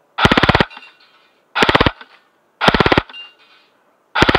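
Double Eagle M916A Honey Badger electric airsoft gun (AEG with an electronic programmable gearbox) firing on full auto in four short bursts of rapid shots, each about half a second long and roughly a second apart.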